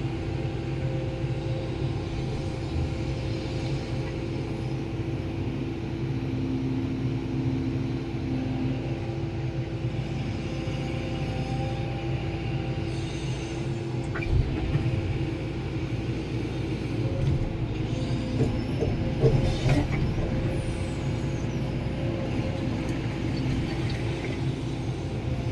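Heavy diesel earthmoving machinery running steadily, with a few metallic knocks and clanks past the middle.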